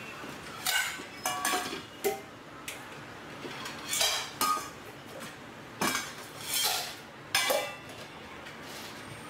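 Dishes and utensils clinking and clattering as food bowls are handled and filled at a counter: a series of sharp, irregularly spaced clinks, some with a short ring.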